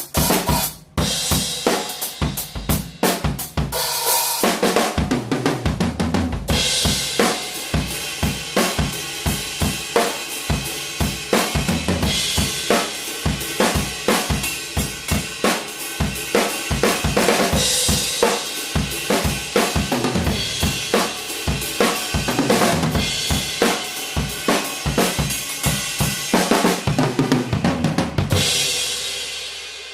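Vintage 1970s Reuther (Pearl-made) drum kit played as a groove with fills: kick drum, Ludwig Acrolite snare, hi-hat and Istanbul Xist cymbals. A few seconds in, the cymbals settle into a steady wash, with crash accents now and then. Near the end the playing stops on a crash that rings and fades.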